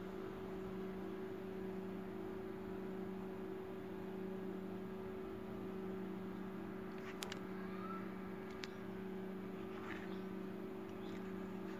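Steady low electrical hum over faint hiss, with a few faint clicks about two-thirds of the way through.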